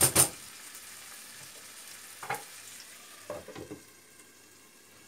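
Chopped onions and tomatoes sizzling in a frying pan, with a spatula scraping across the pan at the very start. A light knock about two seconds in and a few clatters around three and a half seconds in as a lid is set on the pan, after which the sizzle is a little quieter.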